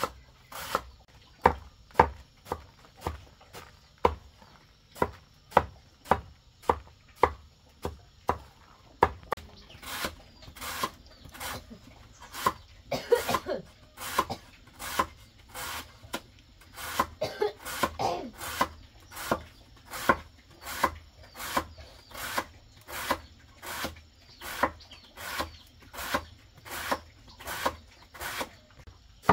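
Repeated chopping on wood with a blade, about two sharp strokes a second in an even rhythm.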